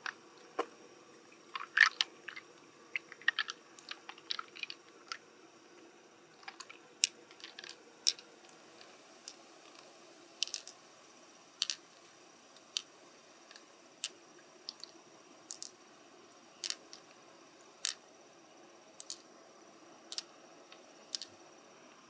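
Hard clicks and crunches from handling a pearl mussel's shell and pearls: a quick cluster of crunchy clicks in the first few seconds, then single sharp clicks about once a second.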